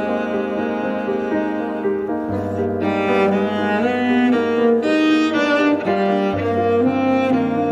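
Instrumental background music: long held notes over a low bass note that shifts twice.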